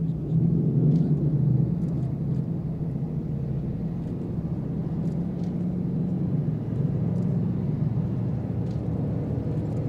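Formation of Spitfires passing overhead, their V12 piston engines merging into one steady, deep drone, a little louder in the first second or two.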